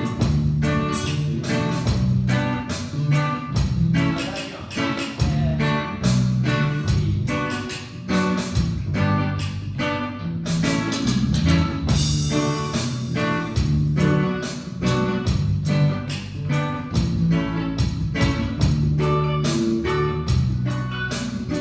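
Music with guitar and drums playing a steady rhythm, with no singing heard.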